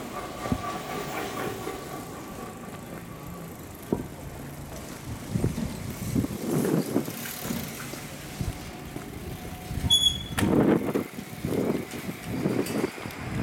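Street sounds in a narrow lane, with bicycles passing close by and a car coming up the lane. Uneven rumbling surges come and go. There is a short, high squeak about ten seconds in.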